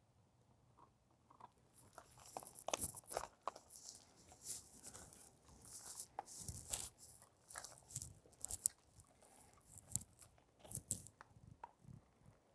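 Dogs, an American Akita puppy and a golden retriever, chewing and biting on the branches of a small bare tree: irregular crunches and cracks of wood, starting about two seconds in.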